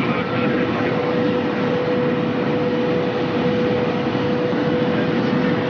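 TGV high-speed train running at about 530 km/h: a steady, even rushing noise with one steady hum over it.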